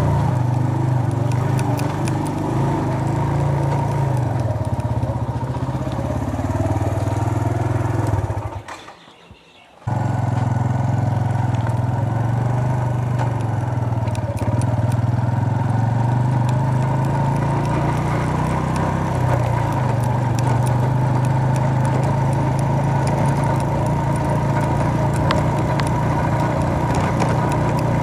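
Suzuki GS 150's single-cylinder four-stroke engine running steadily while the motorcycle is ridden. The sound drops away about eight and a half seconds in and comes back suddenly about ten seconds in.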